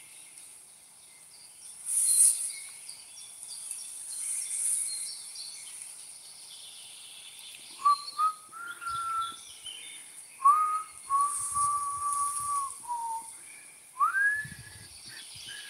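A person whistling a few notes, some held steady and some gliding up or down, starting about halfway through and ending with a rising whistle near the end. Under it runs a steady high insect chorus that swells twice early on, with scattered bird chirps.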